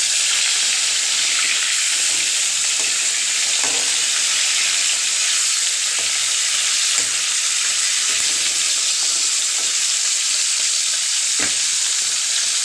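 Salt-and-turmeric-rubbed snakehead (shol) fish steaks frying in hot oil in a wok, a loud, steady sizzle. A metal spatula clicks and scrapes against the pan a couple of times as the pieces are turned.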